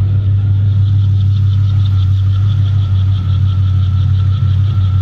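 Holden VE Commodore's L98 V8 with individual throttle bodies idling steadily, with a light rapid ticking over the low drone. It is running on a completely untuned setup.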